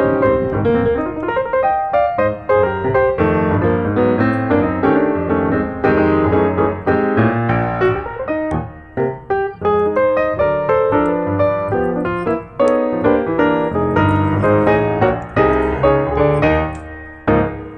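Background piano music: a steady run of struck notes, each fading after it sounds.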